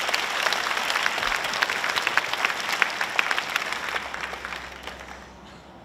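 Audience applauding: many hands clapping together, dying away about a second before the end.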